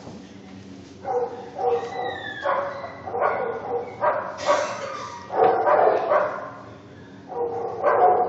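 Dog barking and yowling in short calls about once a second, with a high falling whine about two seconds in.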